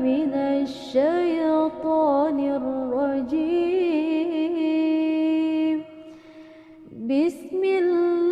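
A single voice reciting the Quran in a melodic, chanted style, drawing out its syllables in ornamented runs and holding one long steady note. The voice stops for about a second past the middle, then takes up the chant again.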